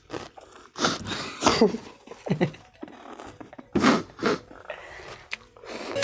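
Boys' wordless vocal outbursts: about five short, breathy bursts with falling cries, spread over the few seconds.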